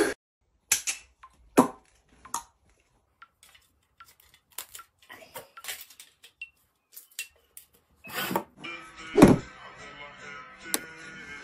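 Aluminium drink cans handled on a table: scattered sharp clicks and knocks, with a louder knock about three quarters of the way in. Background music comes in near the end.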